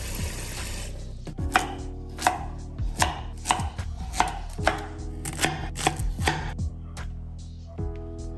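Tap water running into a bowl in a steel sink for about a second. Then a kitchen knife chops carrots on a bamboo cutting board: a quick series of sharp knocks, roughly two a second, pausing briefly before a last few strokes near the end.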